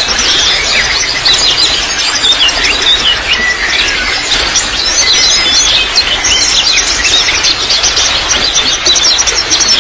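Many small birds chirping and twittering rapidly and continuously, over a steady trickle of water.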